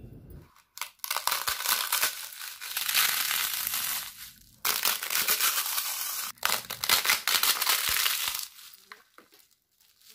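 Crisp fried rice papads crackling and crunching as they are crushed and broken by hand, in three spells with short breaks about four and six seconds in. The sharp crackle is the sign that the papads have fried fully crisp.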